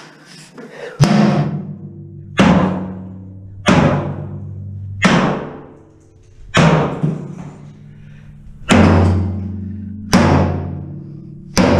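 Sledgehammer blows on a cast iron bathtub to break it up: eight heavy strikes about one and a half seconds apart, each a sharp bang followed by a low bell-like ringing from the tub that dies away.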